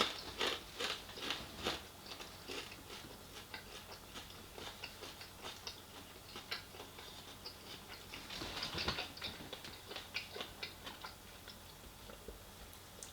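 Close-miked chewing of crispy fried chicken skin: crunches and small wet mouth clicks, thickest in the first couple of seconds and again about eight to nine seconds in.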